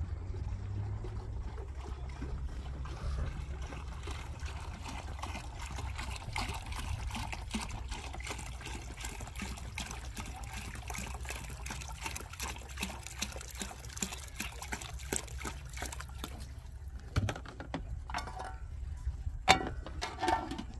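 Liquid trickling and splashing over a low rumble, with a few sharp knocks near the end.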